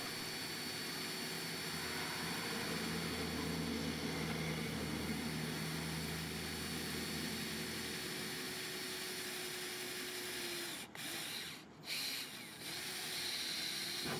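Cordless drill with a twist bit boring a starter hole through a van's steel roof: the motor runs steadily with a constant whine, stops briefly twice about eleven seconds in, then runs again.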